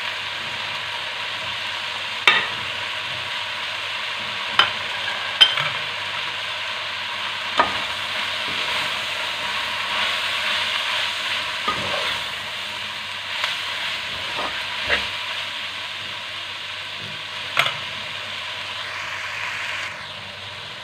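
Sliced onions and tomatoes sizzling in hot oil in an aluminium pot while ground spices are stirred in. A metal slotted spoon scrapes through the pan and clinks sharply against the pot now and then.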